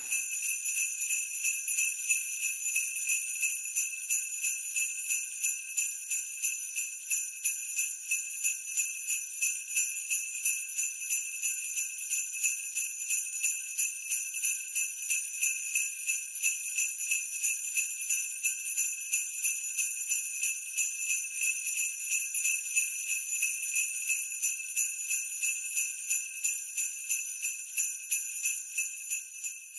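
Sleigh bells shaken in a steady, even rhythm as a looped sound effect, with bright jingling and no other instruments.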